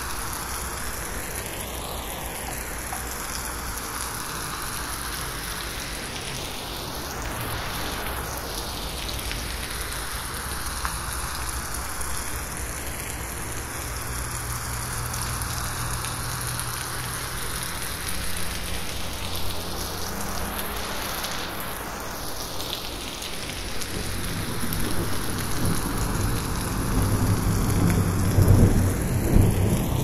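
Steady rain pattering on forest leaves, processed as 8D audio so that it slowly sweeps around the listener. A low rumble builds over the last few seconds.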